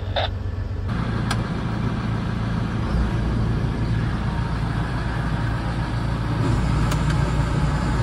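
Steady machinery noise from a grain auger and drive-over conveyor running under a semi trailer as it unloads peas, after a second of combine-cab hum. Two faint ticks sound over the running.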